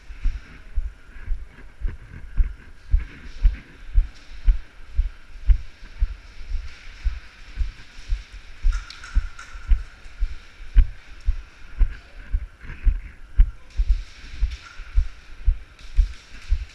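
Footsteps at a steady walking pace, about two a second, picked up as low thuds by a camera worn on the walker's body.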